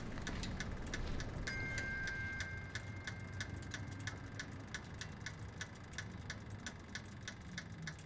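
Rapid, regular mechanical ticking over a steady low hum, growing fainter toward the end. About a second and a half in, a brief two-note chime sounds.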